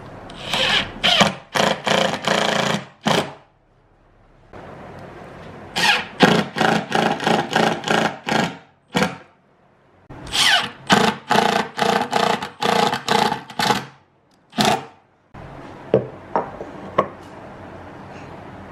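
Cordless impact driver driving screws into a speaker cabinet's handle plate, run in many short trigger bursts with a whirring whine, in three runs separated by pauses. Near the end only a few light clicks.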